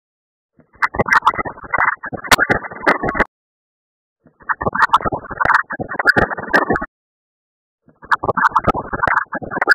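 A heavily effects-processed, muffled and crackly sound clip with scratch-like noises, played as a repeating loop: three bursts of about two and a half seconds, each cut off by about a second of silence.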